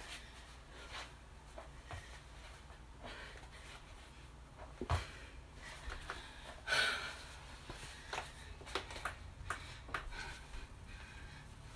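Scattered soft knocks and rustles of a person moving on a floor exercise mat while doing back and tummy lifts, with one louder rush of noise about seven seconds in.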